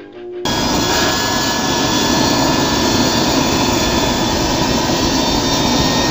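Homemade tin-can jet turbine firing, starting suddenly under a second in as a loud, steady rush of combustion with a thin steady whine over it, flame jetting from its exhaust. A few notes of music come just before it.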